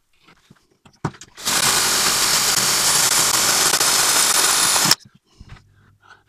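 Cordless drill running steadily for about three and a half seconds and then stopping abruptly, its bit boring through a guide sleeve into a broken-off lawnmower bolt to make the pilot hole for a screw extractor. A few light clicks come before it starts.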